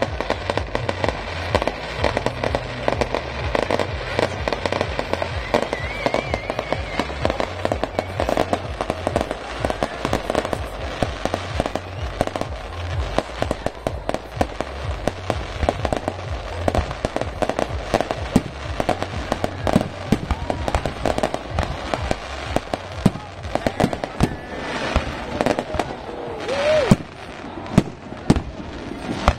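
Fireworks display: a dense, continuous run of bangs and crackling bursts, with one louder burst near the end. Live band music from a festival stage plays underneath.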